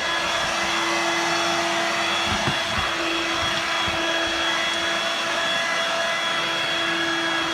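Dirt Devil Vibe corded bagless stick vacuum running in floor mode with its motorized rotary brush engaged: a steady motor whine over a rushing air hiss.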